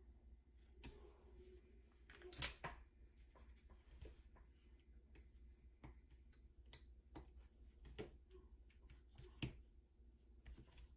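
Faint scattered clicks and taps of hand tools working a small circuit board, with one louder click about two and a half seconds in, over a low steady hum.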